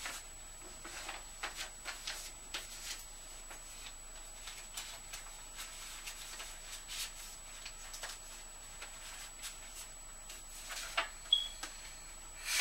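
Paper rustling and crinkling as sheets of letters and cards are picked up and sorted by hand, in short irregular rustles, with a few sharper crackles near the end.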